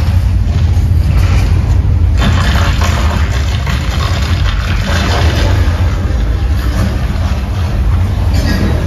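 Simulated earthquake effects of the Universal Studios Earthquake attraction: a loud, deep, steady rumble with rattling, crashing noise on top that swells and fades.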